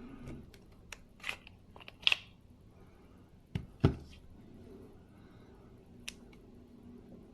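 Handling noises from small objects being moved about: scattered light clicks and brief rustles, and two loud knocks close together a little over three and a half seconds in.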